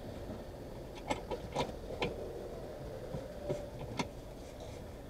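A few light metallic clicks and scrapes as a brass gas-hose connector is turned by hand on a gas bottle's valve, trying to get the thread to catch.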